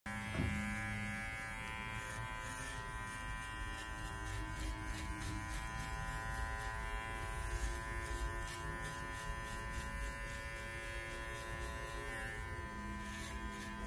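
JRL electric hair clipper running with a steady buzz as it cuts short hair at the nape of the neck, with faint scattered ticks as the blade passes through the hair.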